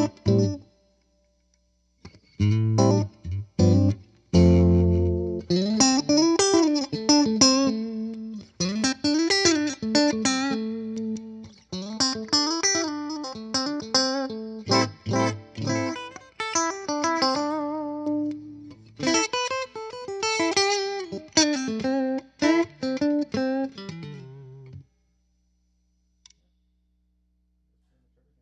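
1978 Alembic Series II, amplified and played as a string of plucked notes and chords whose pitch slides up and down. The playing stops about 25 seconds in.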